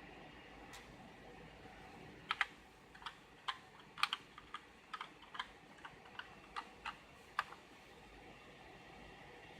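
Keys of a Reidea mechanical keyboard being typed on: about fifteen irregularly spaced keystroke clicks, starting about two seconds in and stopping about two seconds before the end.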